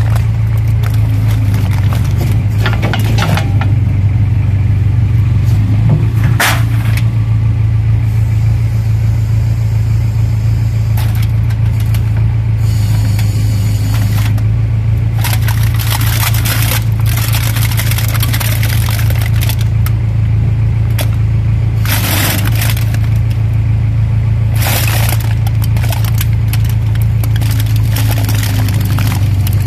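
Tractor engine running steadily while the backhoe bucket presses down on a plastic bag of cans, crushing them with several bursts of crunching and crackling.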